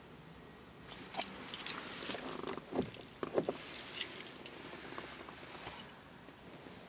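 Handling noises inside a car: a scatter of light clicks, rattles and scuffs with keys jangling, starting about a second in and dying away near six seconds.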